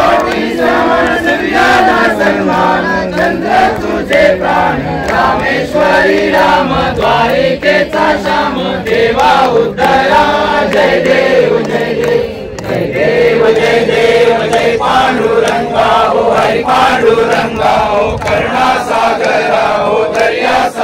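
A group of voices chanting a song together in unison, loud and continuous, with a brief pause about twelve seconds in.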